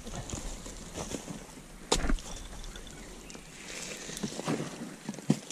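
Pickaxe striking and prying at a crumbling mud and brick wall: a few irregular knocks with scraping and falling debris, the heaviest blow about two seconds in.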